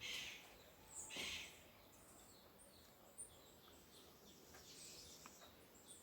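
Faint chirps and calls of small birds feeding in a tree, with two brief louder bursts near the start, about a second apart.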